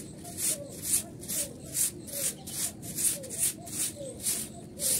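A stiff stick broom sweeping a rough concrete floor in short, even strokes, about two swishes a second.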